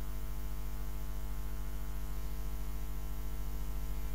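Steady electrical mains hum in the recording: a low, unchanging drone with a stack of evenly spaced overtones over a faint hiss.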